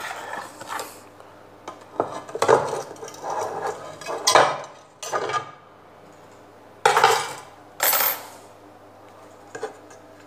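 Metal parts of an LED street light fitting clattering and scraping in irregular bursts as they are handled and pulled out by hand.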